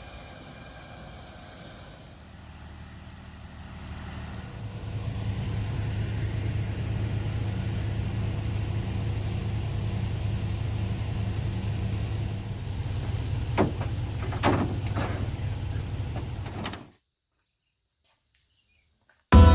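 A vehicle engine running with a steady low rumble that builds up over the first few seconds. A few sharp knocks come near the end, and then the sound cuts off suddenly.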